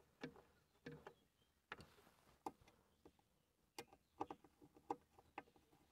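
Faint, irregular clicks and ticks of a small hand screwdriver working screws on a mounting plate, as the screws are snugged partway in turn without being fully tightened.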